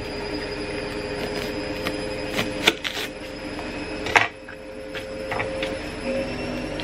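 Washing machine running with a steady hum, under a few sharp clicks and taps of a small knife peeling an onion on a plastic chopping board, the loudest about four seconds in.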